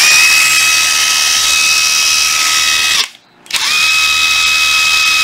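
Panasonic EZ7543 brushless cordless drill-driver free-running with no load: it spins up to a steady high whine, stops after about three seconds, then starts again half a second later and keeps running. It runs smoothly.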